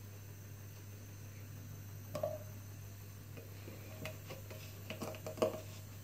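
Faint handling sounds: a few light clicks and taps as a cream carton is picked up and its plastic screw cap twisted, over a steady low hum.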